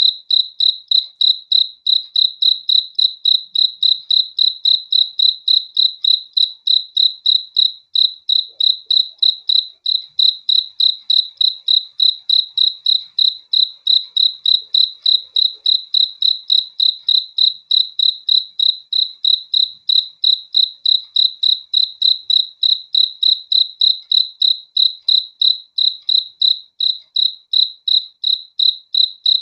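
One cricket chirping close up: short, high chirps of one pitch in a steady, even rhythm of about two and a half chirps a second.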